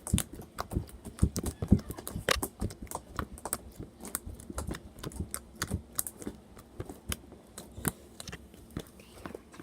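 Fingers poking homemade slime, making quick irregular sticky clicks and pops, several a second.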